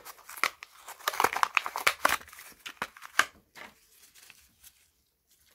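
Plastic blister and card backing of a Matchbox blister pack crinkling and tearing as it is pried open by hand. The crackle is densest for the first three seconds, then thins to a few scattered clicks.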